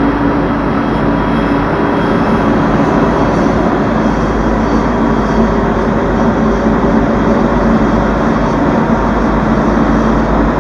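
Boeing 777-200's jet engines running, a loud steady rush of noise with several whining tones held over it.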